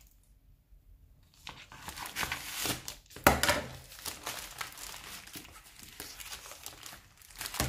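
A black plastic mailing bag being torn open and crinkled by hands as the box inside is pulled out, starting about a second and a half in, with one sharp, loud rip about three seconds in.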